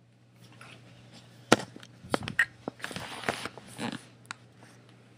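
Handling noise as the camera is picked up and moved: a cluster of knocks, clicks and rustling, loudest in one sharp knock about a second and a half in, over a low steady hum.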